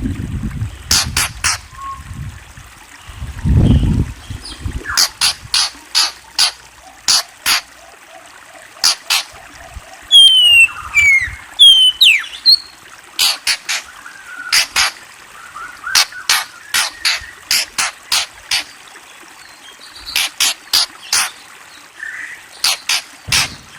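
Murai songbird giving a long series of sharp clicking calls, with a few short whistled notes gliding down about halfway through. A low thump sounds a few seconds in.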